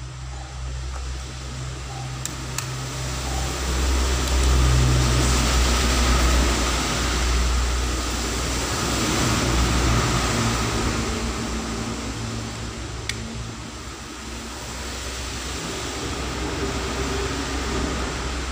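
Steady fan-like background noise with a low hum, growing louder for several seconds near the middle, with a few faint clicks.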